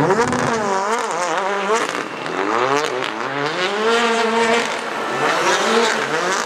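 Ford Fiesta rally car's engine revving hard and backing off again and again through a tight turn, its pitch rising and falling about once a second.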